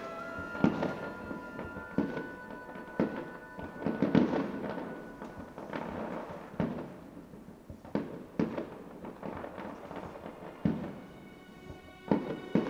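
Fireworks shells bursting in a display: a dozen or so sharp bangs at irregular intervals, the loudest cluster about four seconds in. Music with long held tones plays underneath.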